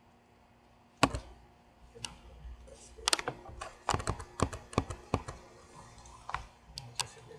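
Computer mouse and keyboard clicks. A single sharp click comes about a second in, a quick run of clicks follows in the middle, and scattered clicks come near the end.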